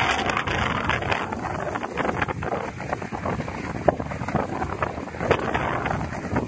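Wind buffeting the microphone over the rush and hiss of water and spray as an iFLY15 catamaran sails at speed, with scattered splashy hits throughout and one sharp tap about four seconds in.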